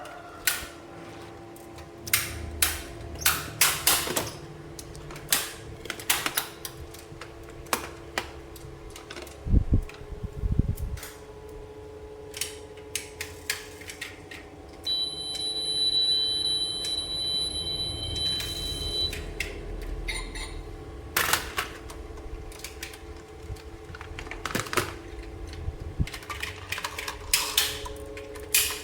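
Plastic toy pieces and packaging being handled, with many irregular sharp clicks, taps and rattles. A steady high electronic tone sounds for about four seconds midway.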